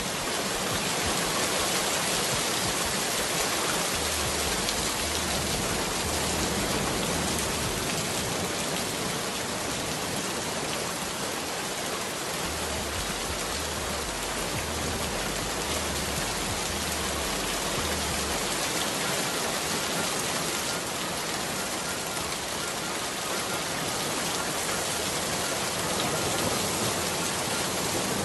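Steady, even hiss of heavy rain.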